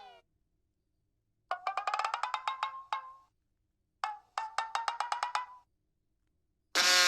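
Cartoon comedy percussion effect: two quick runs of hollow, knocking notes, about ten a second, each run climbing a little in pitch and ending on a single separate knock. The tail of a falling glide fades out at the start, and a loud new comedy effect bursts in near the end.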